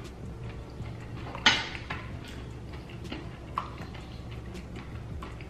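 Close-miked eating sounds: soft mouth smacks and small clicks, with one sharp click about a second and a half in and a lighter clink of a metal spoon against the bowl of grits a couple of seconds later. A steady low hum lies underneath.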